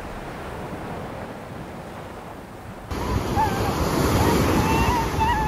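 Small waves washing up over a sandy shore, then, after a cut about three seconds in, louder surf breaking on the beach.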